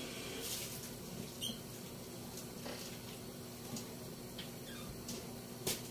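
Scattered light clicks and knocks of a glass-fronted kitchen cabinet and a plastic bottle being handled, with a brief squeak about a second and a half in and the sharpest click near the end, over a faint steady hum.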